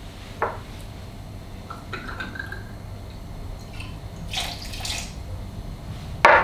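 Liqueur poured from a bottle's spout into a metal bar jigger, rising in pitch as it fills, then tipped from the jigger into a metal cocktail shaker holding ice, about four and a half seconds in. Near the end comes a sharp metal clink as the jigger is set down on the counter.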